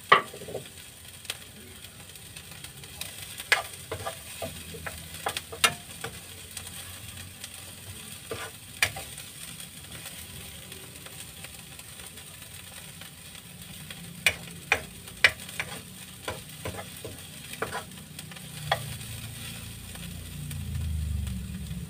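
Metal spatula scraping and tapping against a nonstick frying pan as garlic and onion sauté in oil with a faint sizzle. The sharp clicks come irregularly, bunched in two spells, and a low rumble swells near the end.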